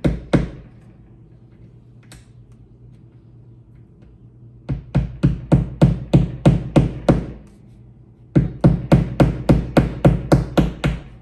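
Hammer tapping plastic drywall anchors into a wall: two runs of quick, even blows, about three to four a second, a few seconds in and again toward the end.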